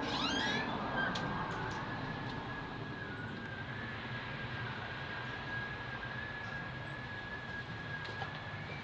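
A steady, high-pitched whine from the sky, holding one pitch with slight wavers, over a low background rumble. A brief rising chirp sounds right at the start.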